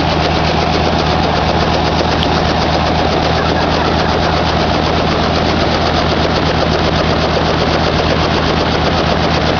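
Robinson R44 Raven helicopter running on the ground, its Lycoming six-cylinder piston engine and rotor making a loud, steady drone with a fast, even pulsing.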